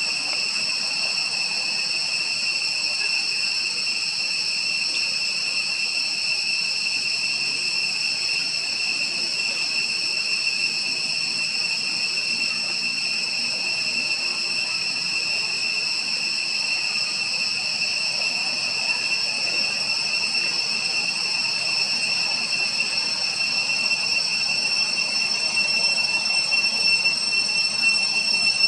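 A steady, high-pitched insect chorus: several unbroken tones droning together, a little louder near the end.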